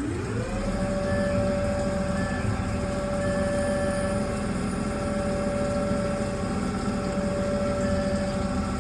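Tormach Slant Pro CNC lathe running an automatic cycle on a brass part: its spindle motor's whine rises in pitch within the first half-second as the spindle speeds up, then holds steady over the mechanical running noise.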